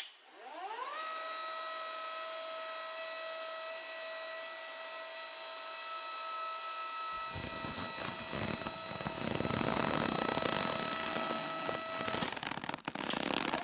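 Small electric motor of a homemade toy crane winch spinning up with a rising whine, then running at a steady pitch as it reels in the lifting line. About halfway through a rattling grind joins as the line takes up the weight of the toy tractor, and the whine stops shortly before the end.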